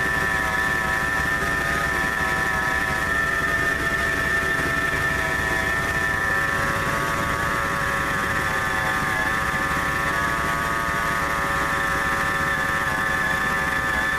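A 1997 Ford F-150's engine idling, heard close at the front of the engine bay, with a steady high-pitched whine from the belt-driven accessories. The owner traces the whine to the idler pulley, which reads hottest. A new A/C compressor pulley did not cure it.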